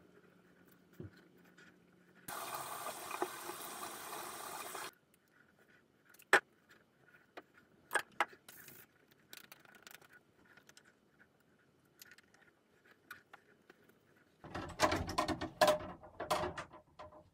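Bathroom sink tap running for about two and a half seconds, then a scatter of small clicks and taps from toiletry bottles and caps, and a louder burst of clattering and rustling near the end.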